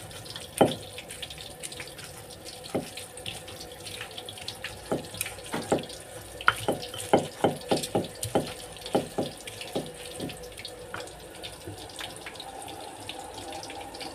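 Pestle (ulekan) knocking and grinding in a cobek mortar, crushing fried chillies, shallots and garlic into sambal: scattered knocks, then a quick run of about three strikes a second from about six to ten seconds in, over a steady hiss.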